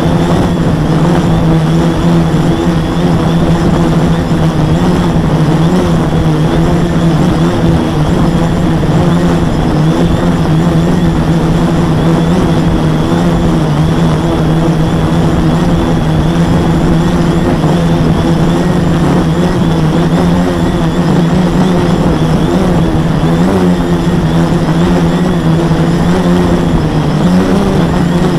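Quadcopter's four MultiStar 2212 920kv brushless motors spinning 10x4.5 propellers, heard through the camera bolted to the frame: a loud, steady buzzing drone with a strong low hum. The hum rises a little in pitch near the end as the throttle changes.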